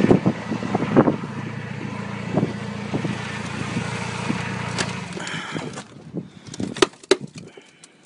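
A vehicle engine running steadily with a low hum, fading away about six seconds in, followed by a couple of sharp clicks.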